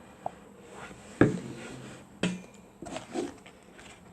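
A stirring utensil knocking and scraping in a container as glue and borax slime is mixed and starts to thicken, with two sharper knocks about a second and two seconds in and softer ones near the end.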